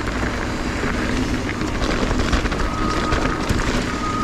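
Mountain bike descending a rough trail: wind buffeting the mic over rattling and tyre noise, and from about halfway through the hydraulic disc brakes squeal in short high-pitched stretches as they are dragged. The brakes are the loud, squealing kind the rider complains about.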